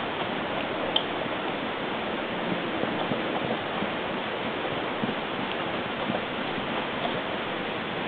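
Steady, even hiss with a few faint ticks, one sharper tick about a second in.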